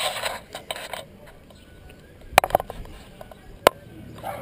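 Rustling handling noise for about the first second, then two sharp clicks about a second and a quarter apart, like an action camera being handled and set in place.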